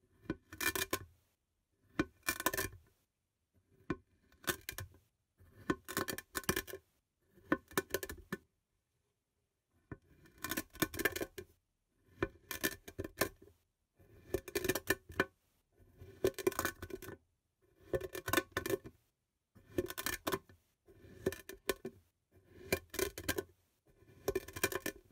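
Knife blade slicing down through packed kinetic sand, each cut a short crunchy crackle. About a dozen cuts come every one and a half to two seconds, with a longer pause about nine seconds in.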